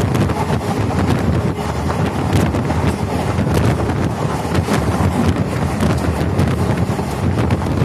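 Wind buffeting the microphone at the open door of a moving express passenger train, over the steady rumble of the coach running on the track, with scattered sharp clicks of wheels on rail joints.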